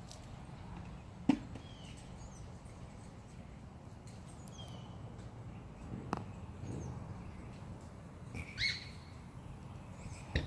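Birds chirping in the background over a steady low outdoor hiss, broken by a few sharp knocks, the loudest about a second in, and a short high squeak about eight and a half seconds in.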